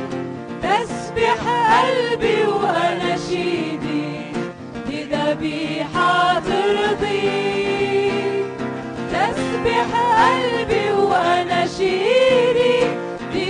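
Arabic Christian worship song: a voice sings the verse melody in phrases over a steady instrumental backing.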